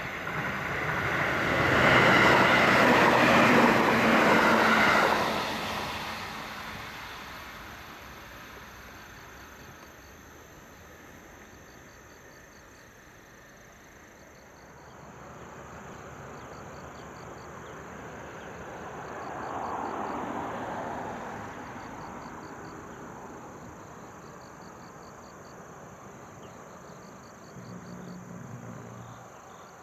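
E653-series electric train passing at speed. Its running noise swells quickly and peaks for a few seconds about two seconds in, then fades away. Insects chirp in faint pulsing trills afterwards, and a softer swell of noise rises and falls around twenty seconds in.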